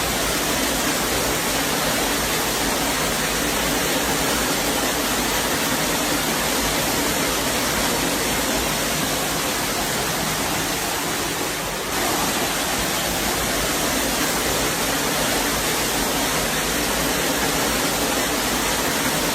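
Loud, steady rush of water, unbroken apart from a brief dip about twelve seconds in.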